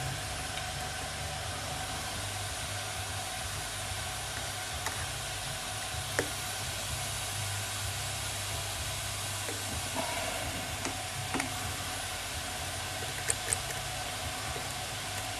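Steady hiss from the Märklin 16051 toy steam engine's fired boiler as it heats toward working pressure, with a low hum under it and a few faint ticks from the oil bottle's needle spout touching the engine.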